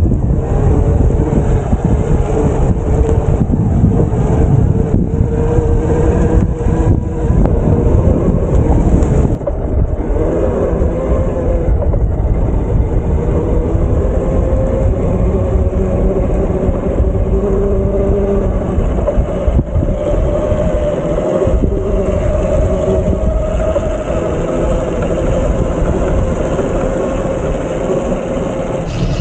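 Wind buffeting the microphone while riding an electric bike, with a steady whine underneath that wavers slowly in pitch.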